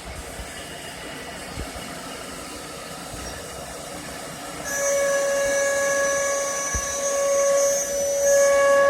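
CNC router spindle cutting a wood panel. A lower hiss comes first, then about halfway in a loud, steady, high-pitched whine with overtones sets in and holds.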